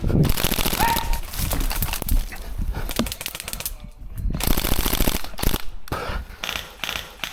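Airsoft electric rifles firing long full-auto bursts, a rapid even rattle of shots. There are three bursts, with short breaks about three and a half and five and a half seconds in.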